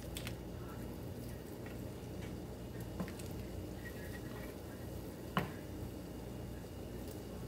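Soft wet plops and a few light clicks as chicken pieces are dropped into simmering cream sauce in a pan, over a low steady hum. One sharper knock comes about five and a half seconds in.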